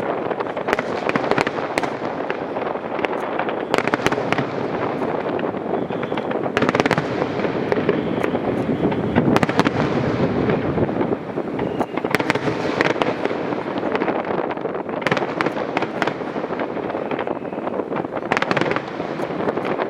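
Aerial fireworks display going off continuously: many sharp bangs and crackling bursts in quick succession over a dense, unbroken rumble of overlapping explosions.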